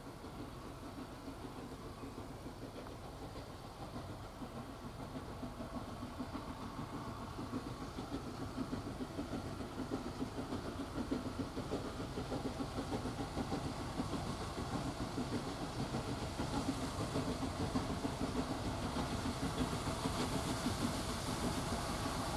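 Steam tank locomotive working under steam, its exhaust beats growing steadily louder as it approaches.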